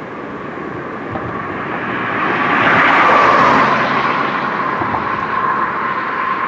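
A vehicle passing close by: a rush of noise that swells to a peak about three seconds in and eases off, over a steady high-pitched tone.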